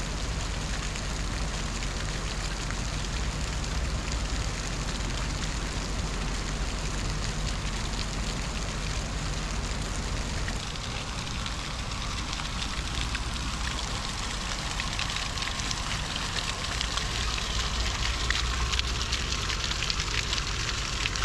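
Steady hiss of water with a low rumble under it that drops away about halfway through.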